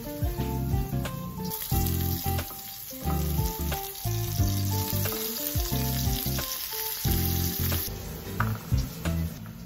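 Dried salted fish (tuyo) frying in oil in a pan, sizzling from about a second and a half in until shortly before the end. Background music with a steady bass line plays throughout.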